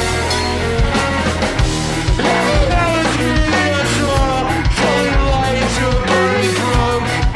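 Rock music with a steady drum beat, guitar and a gliding vocal or lead line.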